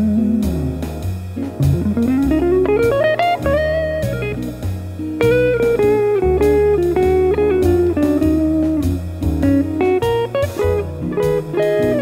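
Farida FA-16MP hollow-body archtop electric guitar played through an amplifier. It plays a single-note melody with a long rising phrase about two seconds in, over a low bass line.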